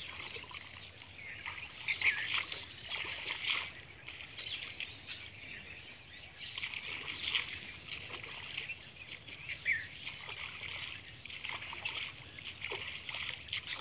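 A cast net being pulled in and shaken in shallow pond water: irregular splashing and dripping.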